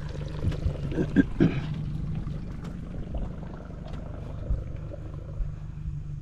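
A small aluminium boat's motor running steadily at low speed, a low even hum, with a couple of light knocks in the second half.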